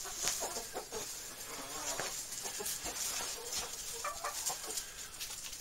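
Hens clucking softly and intermittently, with short calls scattered throughout and light rustling and scratching in the compost and wood-chip bedding.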